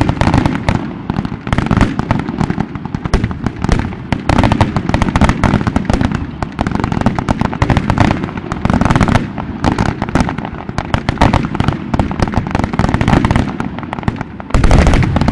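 Fireworks going off in a dense barrage: aerial shells bursting one on top of another with a rapid, continuous crackle of reports. A heavier burst of bangs comes near the end.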